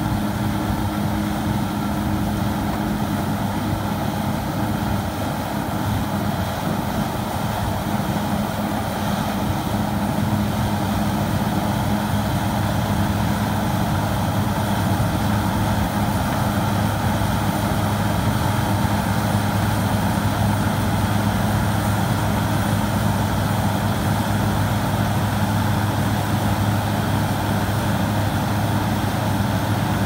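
Engine of a mobile brick-laying machine running steadily, a constant low hum without change in pitch.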